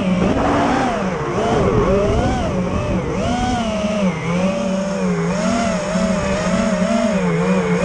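FPV drone's electric motors and propellers whining, the pitch swinging up and down about once or twice a second with the throttle, over a rush of air noise.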